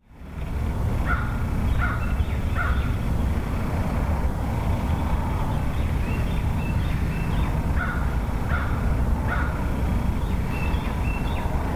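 A crow cawing in two series of three, a few seconds apart, with a few small bird chirps and a steady low rumble underneath.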